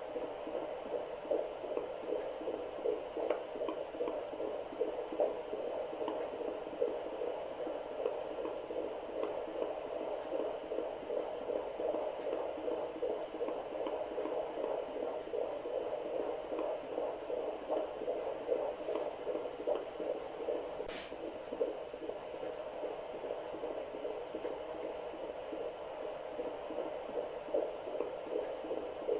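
Fetal heartbeat played through a Doppler ultrasound device: a steady, continuous run of fast whooshing pulses over hiss.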